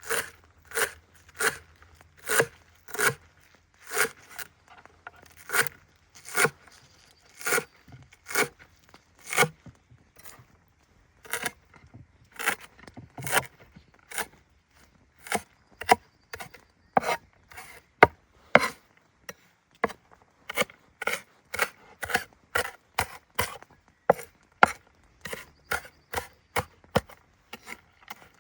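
A blade chopping down onto wood in a steady run of sharp strokes, which speed up from about one every second to about two a second about halfway through.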